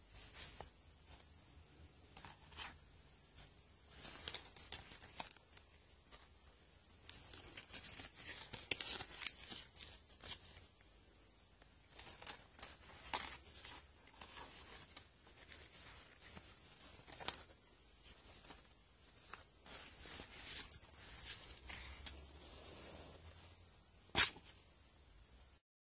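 Packaging being handled and torn open in irregular crinkly, rustling spells while a stuffed toy is unboxed, with a sharp click near the end.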